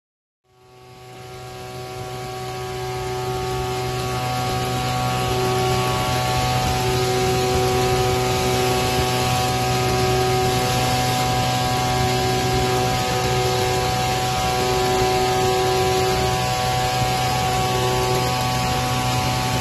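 Brush cutter engine test bench running steadily: a constant machine hum with several steady whining tones and a higher tone that comes and goes every second or so. It fades in over the first few seconds.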